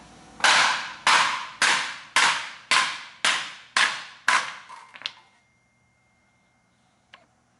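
Hammer striking a metal fuel-pump lid to seat it: eight steady blows about half a second apart, each with a short metallic ring, then two lighter taps.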